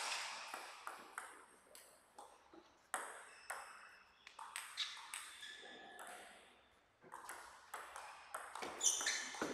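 Table tennis ball clicking off rubber-faced rackets and bouncing on the table during play: irregular sharp ticks, each with a brief ringing tone.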